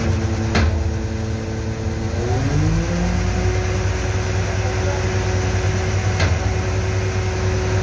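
A lifting crane's engine running steadily, revving up about two seconds in and holding at the higher speed. Two brief sharp clicks, about half a second and six seconds in.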